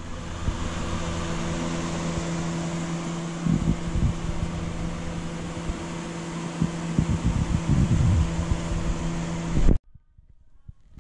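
Electric wall fan running close by: a steady hum under an even rush of air, with irregular low rumbles from the airflow on the microphone. The sound cuts off abruptly near the end.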